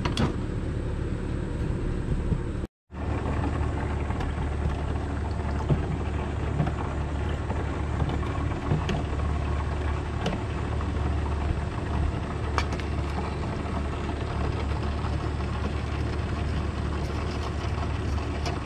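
A steady low rumble with occasional light clinks of small metal carburetor parts being handled and set into an ultrasonic cleaner. The sound drops out completely for a moment about three seconds in.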